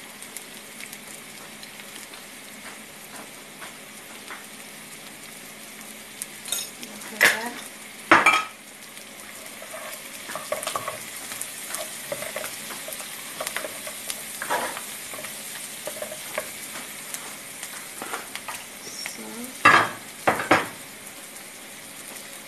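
Sliced sausages sizzling in a frying pan and being stirred with a wooden spoon, with a steady hiss of frying. Twice, a pair of sharp knocks of the spoon against the pan stands out, once near the middle and once near the end.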